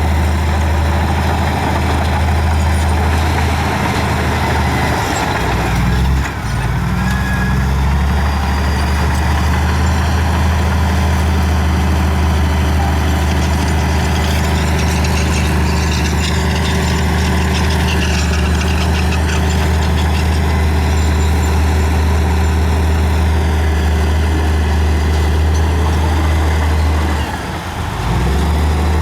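Heavy diesel engine of earthmoving machinery running steadily under load, with a brief dip in engine pitch and loudness about six seconds in and again shortly before the end.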